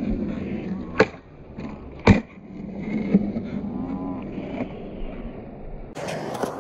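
Skateboard on concrete in a slowed-down recording: wheels rolling, a sharp tail pop about a second in and a landing slap about a second later, both sounding dull and lowered. Near the end, after a cut, skateboard wheels rolling on concrete at normal speed.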